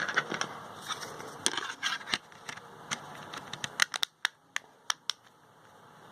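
Small sharp plastic clicks and light scraping as a smartphone is handled while a SIM card is fitted into its slot, irregular ticks coming one after another and thinning out near the end.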